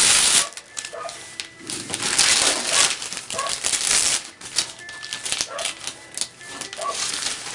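Gift-wrapping paper being torn and crinkled as a present is unwrapped, in irregular bursts of ripping and rustling.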